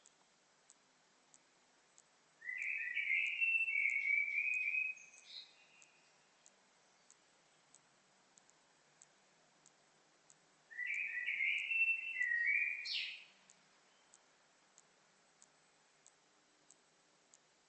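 A songbird sings two phrases of about two and a half seconds each, one a few seconds in and one a little past halfway. A faint, regular tick sounds a little under twice a second throughout.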